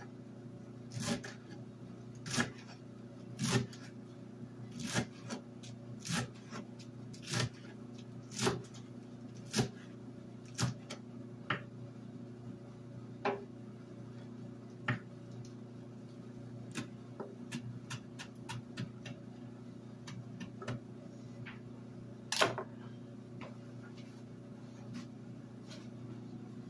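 Chef's knife chopping kale leaves on a wooden cutting board: a knock about once a second for the first half, then slower, scattered cuts, with one louder knock a little past three-quarters of the way. A steady low hum runs underneath.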